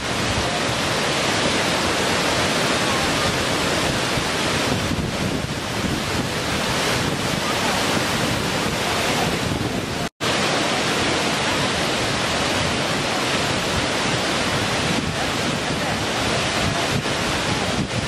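Waterfall pouring over rock ledges: a steady rush of falling water, with a split-second dropout about ten seconds in.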